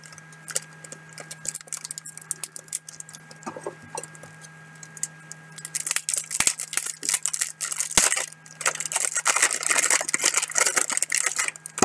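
Handling of a plastic puzzle cube and its packaging: scattered clicks and rattles, growing into a dense run of clicking and rustling in the second half. A steady electrical hum from a poor computer microphone sits underneath.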